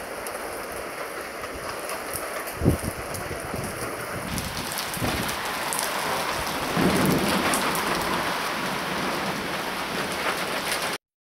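Heavy thunderstorm downpour: a steady hiss of rain, with a sudden loud thump about two and a half seconds in and thunder rumbling for a second or two from about seven seconds in. The sound stops suddenly just before the end.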